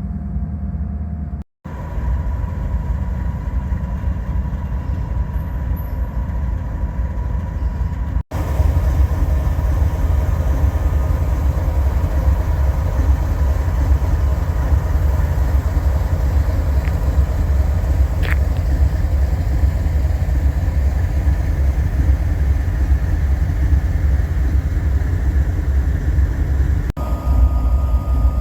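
Steady, loud, low vehicle rumble across several spliced clips, with a faint steady tone, louder after a cut about eight seconds in.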